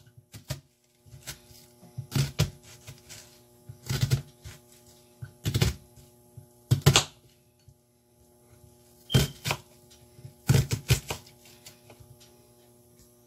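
Knife knocking on a cutting board in short irregular runs of strokes, a few seconds apart, while vegetables such as sweet peppers are cut. A steady low hum runs underneath.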